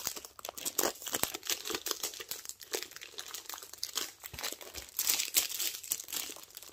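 Crinkling and crackling of a thin clear plastic sleeve being handled and pulled off a rolled diamond painting canvas. The crackles come in quick irregular bursts and get denser and louder about five seconds in.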